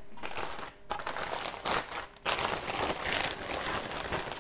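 Clear plastic bag of cardboard jigsaw pieces being handled and pulled about, a continuous crackly plastic rustle with a brief break about two seconds in.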